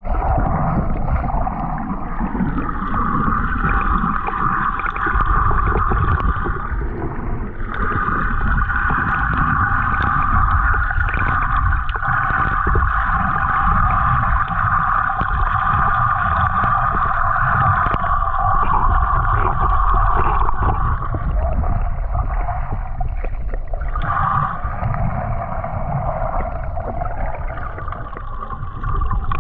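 Underwater sound picked up by a submerged camera: a low, muffled rumble of moving water with a steady hum over it that dips briefly twice, about a third of the way in and again near the end.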